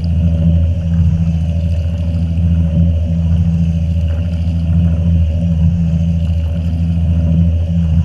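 Water pouring into the tub of a Fisher & Paykel Gentle Annie top-loading washing machine as it fills, heard from inside the tub as a steady low hum.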